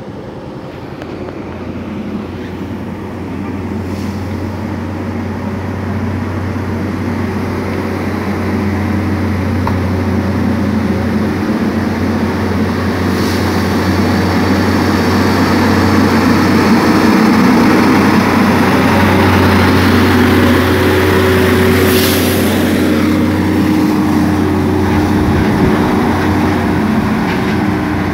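Heavy diesel trucks running and driving past close by, a steady low engine hum over road noise that builds up and then eases off, with a short hiss past the middle.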